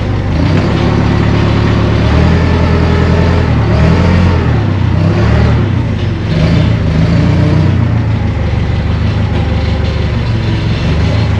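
An engine running, its speed rising and falling unevenly, in the way of a shop vehicle being manoeuvred with a heavy load.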